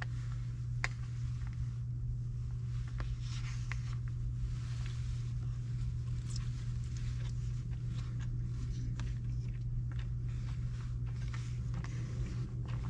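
Plastic fork clicking and scraping against a plastic takeout bowl, with chewing, over a steady low hum.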